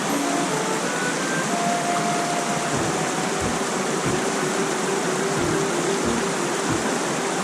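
Steady rush of a mountain stream, with soft background music of held notes that step in pitch.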